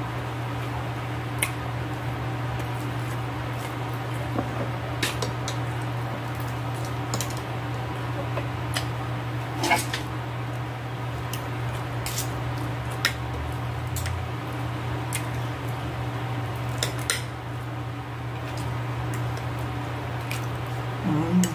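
Fork and knife clinking and scraping against a plate, with sharp taps every second or few and wet chewing sounds, over a steady low hum.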